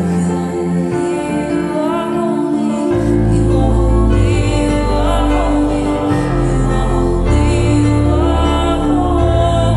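Slow, soft worship music: held chords with a voice singing long, wavering notes, and deep bass notes that come in about three seconds in and change every couple of seconds.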